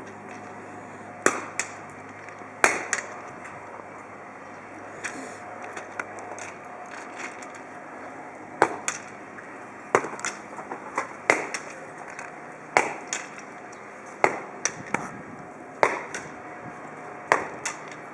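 Repeated sharp knocks, roughly one every second and a half, with lighter taps in between, over a steady background hum.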